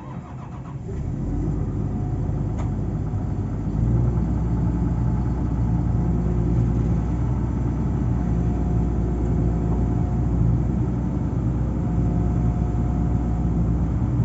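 Komatsu PC228 excavator's diesel engine running, the level rising over the first few seconds and then stepping up to a steady, higher speed about four seconds in.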